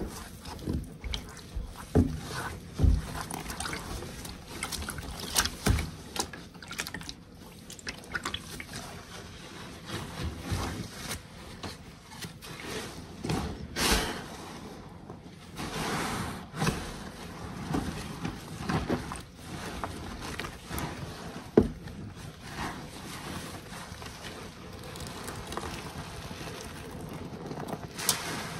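Egg-crate waffle foam car-wash sponges pressed and squeezed by hand in a tub of soapy Pine-Sol solution: wet squishing and sloshing, with irregular squelches and pops as liquid is forced through the foam. Near the end a lathered sponge is wrung out and liquid pours back into the tub.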